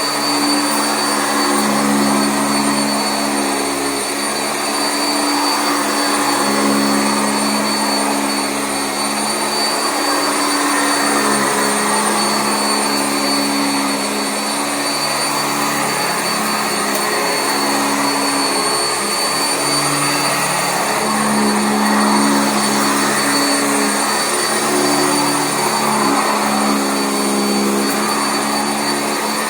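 Sanitaire SC679J commercial upright vacuum running continuously over carpet: a steady high motor whine over a rushing of air, with a lower hum that swells and fades every few seconds.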